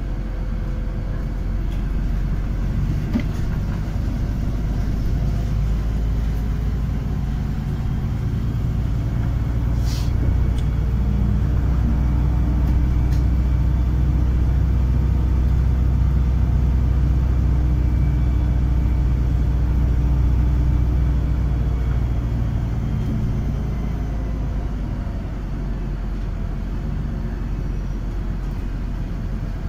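A moving city bus heard from inside the cabin: a steady low engine drone and road rumble that grows louder through the middle and eases off near the end. A single sharp clunk comes about ten seconds in.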